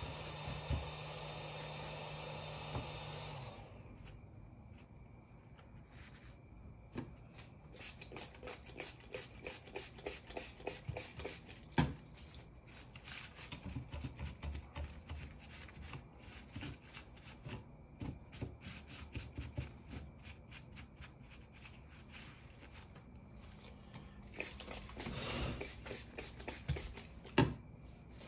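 Hot air rework station blowing a steady hiss with a low hum, shutting off about three and a half seconds in. Then a long run of small, quick scrapes and clicks, several a second.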